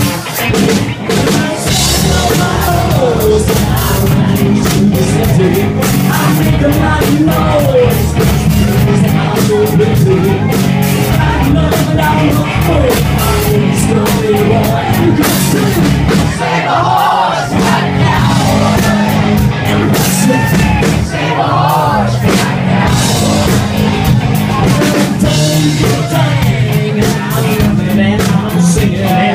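Live band playing a loud rock song: drum kit and electric bass guitar, with singing into microphones.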